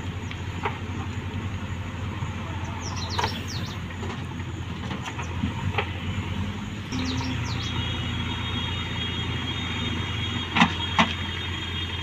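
JCB 3DX backhoe loader's diesel engine running steadily while the backhoe digs mud and loads it into a tractor trolley. Several sharp knocks are heard, two of them loud near the end, and the engine grows louder about seven seconds in.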